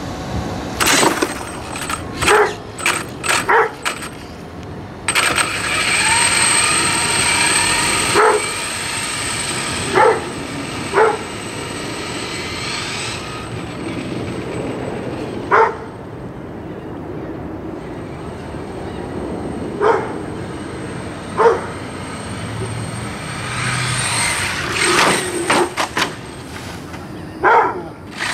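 A dog barking in single sharp barks, a dozen or so spread a second or several apart. Under them, an electric Redcat Earthquake 8e RC truck runs twice as a whine rising in pitch over a rushing noise as it speeds up.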